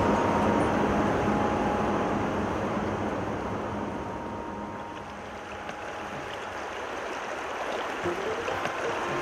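Flowing river water, a steady rush that sinks lower about halfway through and rises again.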